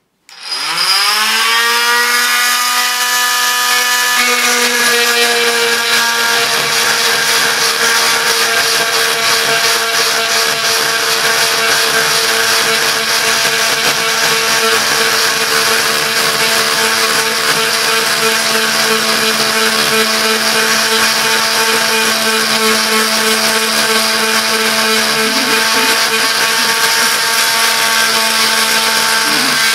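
Oscillating multi-tool switched on, its motor whine rising to speed over about a second and a half, then running steadily as the saw blade cuts into a wooden slab.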